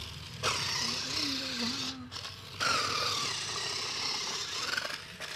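Small DC motors of a homemade power-bank toy car running with a high whir that cuts out for about half a second near the middle, then starts again.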